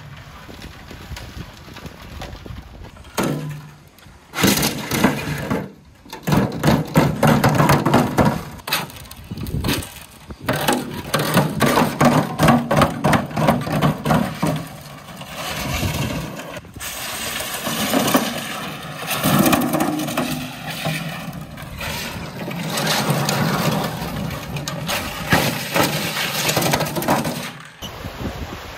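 The RC car's big empty plastic water-jug wheels bouncing and clattering down brick steps: a long run of hollow knocks and crashes, thickest in the first half, then a steadier, rougher rolling sound.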